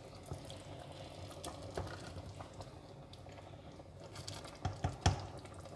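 Wooden spoon stirring thick egusi soup in a stainless steel pot: soft scraping and squelching with a few light knocks of the spoon against the pot, the loudest about five seconds in.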